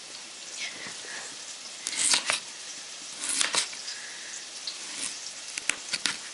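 Kitchen knife slicing a raw peeled potato on a plastic cutting board: two louder cuts about two and three and a half seconds in, then a quick run of sharp clicks near the end as the blade hits the board. Onions sizzle steadily in the frying pan.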